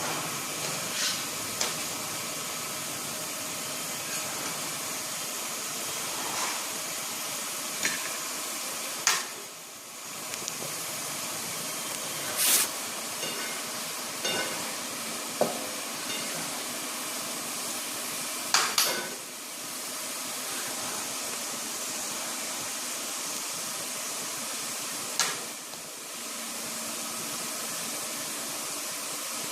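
Kitchen work over a steady hiss, with a utensil clinking now and then against a pot or dish, a dozen or so separate clinks.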